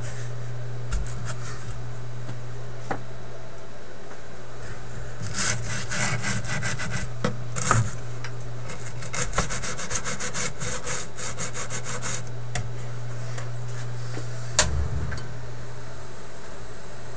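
Hand rubbing and scraping on the record player's wooden cabinet and its paper lining, in two spells of quick back-and-forth strokes, over a steady low hum. A single sharp knock comes near the end.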